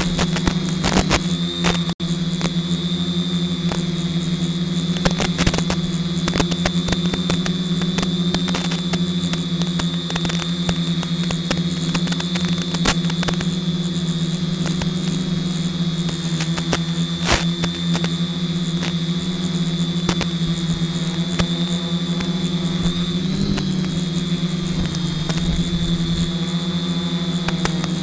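Multirotor drone's electric motors and propellers hovering, a steady buzzing hum with a thin high whine above it. The pitch wobbles briefly about three quarters of the way through as the motors adjust.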